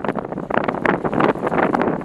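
Gusty wind buffeting the microphone, a loud, uneven rushing noise full of crackles.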